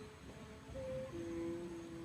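A kite's bow hummer droning in strong wind, holding a steady note and dropping to a lower, louder note about a second in, over low wind rumble.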